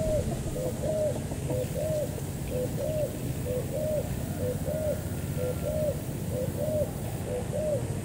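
Spotted doves cooing over and over, each call a short low note followed by a longer arched coo, about once a second.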